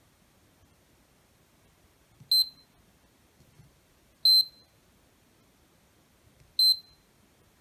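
Three short, high-pitched beeps from a digital multimeter's continuity beeper, about two seconds apart, as its probes are touched across MOSFET pins on a cordless saw's motor-control board. Each beep marks a low-resistance path between the probed pins, as a shorted, blown MOSFET gives.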